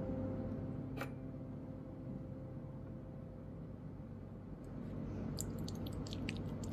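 Fork working food on a china plate: one sharp tap about a second in, then a quick run of small crackling clicks near the end as the fork presses into roasted chicken and fried onions.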